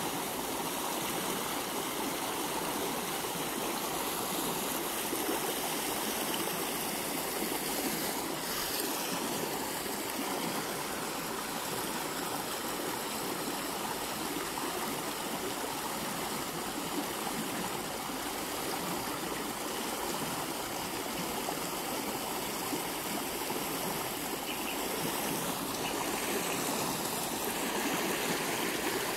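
Stream water spilling over a small concrete weir: a steady rush of water.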